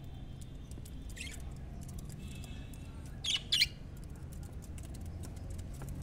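Budgerigars chirping: one short call about a second in, then two sharp, louder chirps in quick succession just past the middle, over a low steady hum.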